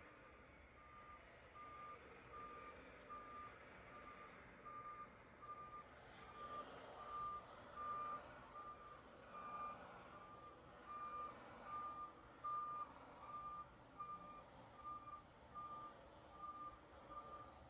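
Vehicle reversing alarm beeping steadily, about one and a half single-pitched beeps a second, starting about a second in, over faint background noise.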